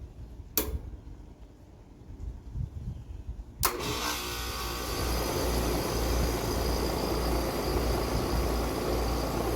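Outdoor air-conditioner condensing unit starting up on its newly fitted run capacitor. A sharp click comes about half a second in and another about three and a half seconds in. Then the compressor and condenser fan run with a steady rushing noise over a low hum.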